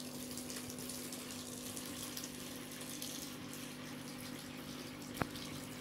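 Aquarium water running through a siphon gravel-vacuum hose into a plastic bucket: a steady pouring rush. A low steady hum runs under it, and there is a single click about five seconds in.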